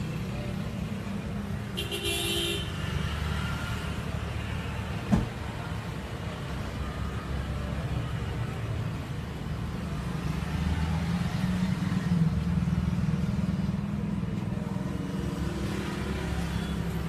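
Steady low rumble of road traffic passing the roadside stall. A brief high-pitched sound comes about two seconds in, and a single sharp knock about five seconds in.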